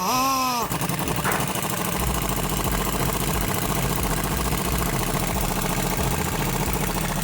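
Power impact driver driving a 3-inch lag bolt through 2x6 flooring into the heavy-gauge frame. The motor whines up and drops back briefly, then hammers steadily with rapid blows.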